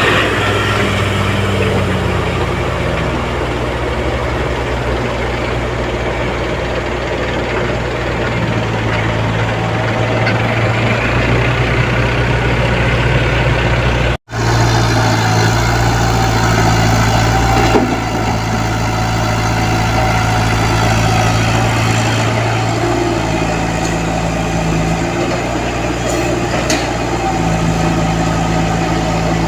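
Komatsu PC75UU mini excavator's diesel engine running steadily as it works, with a deep, even hum. The sound drops out for an instant about halfway through.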